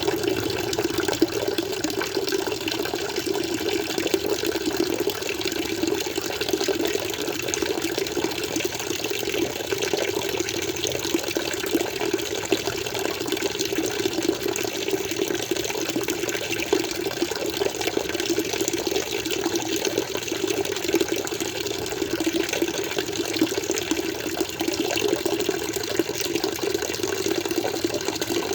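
Aquarium water flowing and splashing in a steady, unbroken rush.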